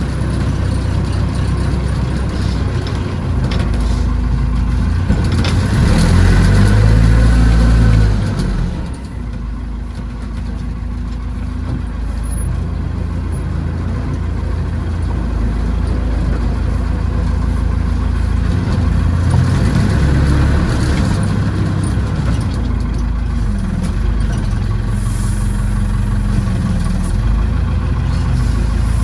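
Tractor-backhoe engine running steadily. About five seconds in it speeds up and gets louder, holds there for a few seconds, then drops back to a lower steady run near eight seconds.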